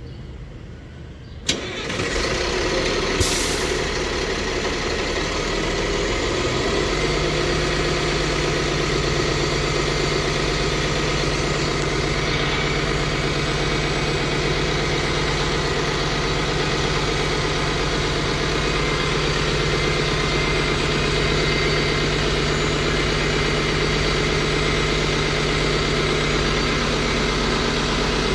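2011 New Flyer D60LFR articulated bus's diesel engine starting up: it fires suddenly about a second and a half in, with a brief hiss about three seconds in, then settles into a steady idle with a steady low hum from about seven seconds in.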